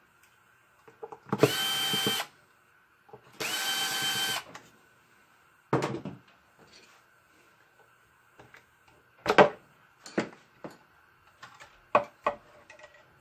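Cordless drill-driver spinning bolts out of an aluminium heat exchanger in two runs of about a second each within the first five seconds. Each run winds up and winds down in pitch. After them come scattered sharp clicks and knocks of metal parts being handled.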